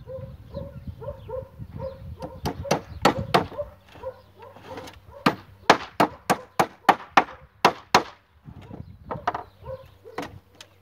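Hammer driving nails into wood: a few strikes about three seconds in, then a fast run of about a dozen strikes between about five and eight seconds.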